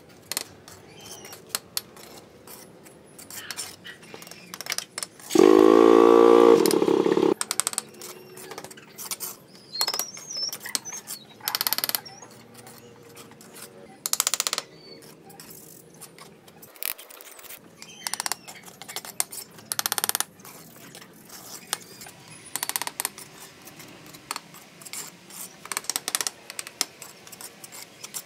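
Steel brick trowel scraping and tapping on red bricks and wet cement mortar as bricks are set: repeated short knocks and scrapes. About five seconds in, a much louder pitched sound lasting about two seconds stands out over the work.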